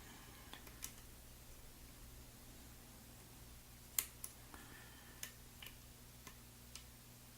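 Faint, sparse metallic clicks and a light scrape of a lock pick working the sidebar pins inside an ASSA Twin Combi lock, with one sharper click about four seconds in.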